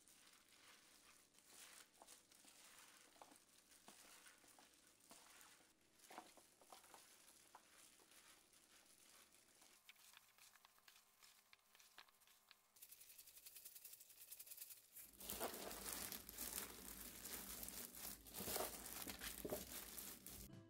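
Hands in disposable plastic gloves tossing young radish and cabbage greens through wet chili seasoning in a plastic basin: a wet rustling and crinkling of leaves and gloves, faint at first and louder in the last third.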